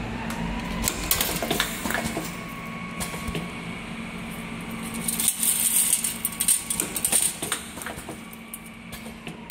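AM171C semi-automatic argon arc welding head sealing machine running with a steady hum and scattered mechanical clicks and knocks. From about five to seven and a half seconds in comes a louder stretch of hissing with sharp crackles.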